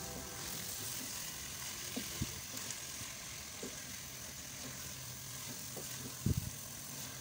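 Spinach and chicken sizzling in a pan as they are stirred with a wooden spatula, with a few light knocks of the spatula against the pan, the loudest a quick cluster near the end.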